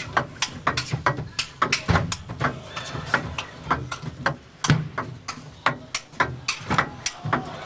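Table tennis rally: the celluloid ball clicking sharply off the bats and the table in quick alternation, about three to four clicks a second.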